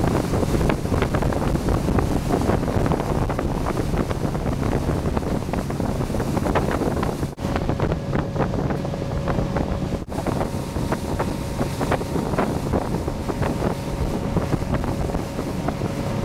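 Motorboat engine running steadily under way, with wind buffeting the microphone. The sound drops out very briefly twice, about seven and ten seconds in.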